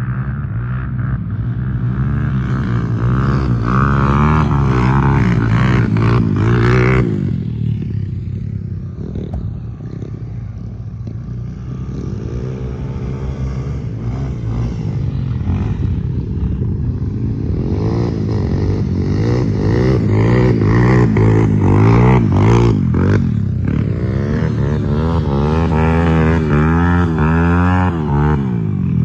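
Dirt bike engine revving as it rides over loose sand, its pitch rising and falling with the throttle. The sound drops off suddenly about seven seconds in, then builds again and is loudest from about two-thirds of the way through as the bike comes close.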